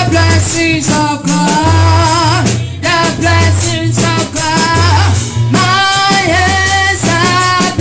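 Church praise song: singing over a bass line and drums, with a steady beat.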